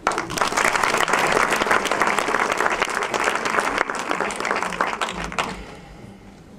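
Audience applauding, then dying away after about five seconds.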